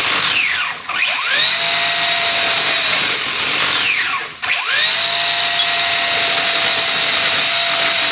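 Arrma Limitless RC car's 6S brushless motor and drivetrain whining at high speed: the high-pitched whine winds down and spins back up twice, holding steady in between.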